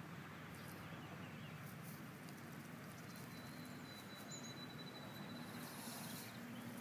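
Quiet outdoor background: a faint steady low hum with a few soft clicks and rustles.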